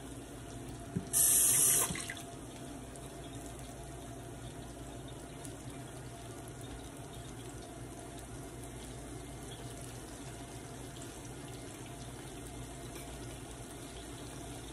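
Ripe plantain slices (maduros) deep-frying in a pan of hot oil, a steady sizzle, with a brief louder hiss about a second in.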